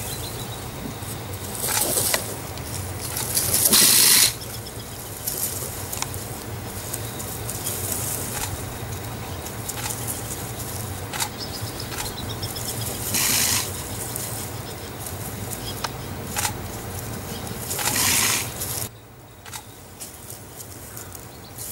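A porcupine's raised quills rattle and rustle in short bursts, the loudest lasting about a second around four seconds in. This is the porcupine's defensive quill-rattling warning at a leopard. A low steady hum runs underneath.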